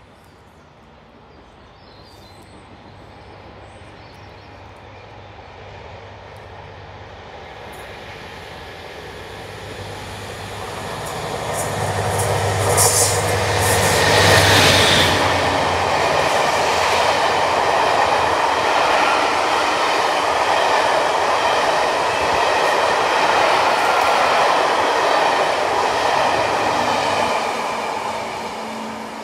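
Mainline diesel locomotive hauling a railtour train approaches, its low engine note growing steadily louder until it passes about 13 to 15 seconds in with a burst of sharp wheel-on-rail clicks. The coaches then roll past with a steady rumble of wheels on track that starts to fade near the end.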